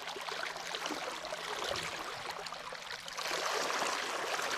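Seawater splashing and rushing around bare feet dragged in the water from the stern of a moving sailboat, getting louder about three seconds in.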